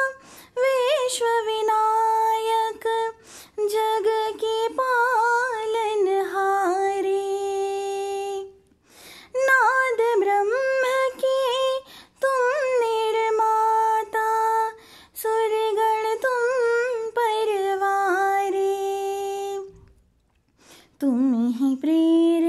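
A woman singing a devotional bhajan to Ganesh, in long held notes with ornamented turns. She breaks off twice for a breath, about a third of the way in and again near the end.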